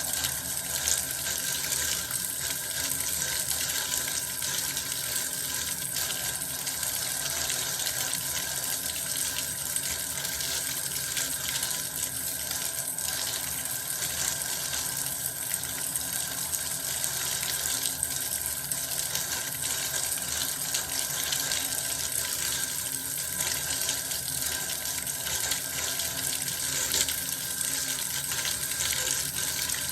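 Bath water running steadily from a tap, an even, continuous rush of water.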